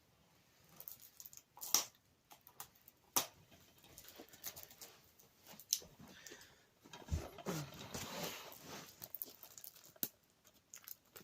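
Picking and scratching at the plastic shrink-wrap on a DVD case: scattered sharp clicks and scratchy rustling of cellophane and plastic. There is a brief low, wavering sound about seven seconds in.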